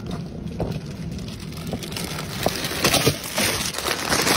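Shopping cart rolling, its wheels and frame rattling with scattered clicks, getting louder toward the end and cutting off suddenly.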